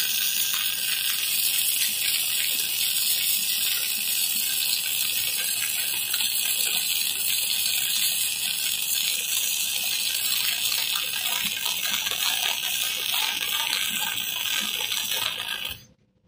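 MIG welding arc crackling and hissing steadily as a bead is run on a steel pipe fitting, then stopping abruptly near the end.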